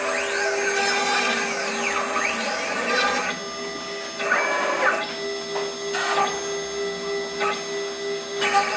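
Mini CNC router cutting foam: the spindle hums steadily while the stepper motors whine. For the first three seconds the whine rises and falls in pitch as the axes speed up and slow down, and after that it jumps between steady pitches every second or so.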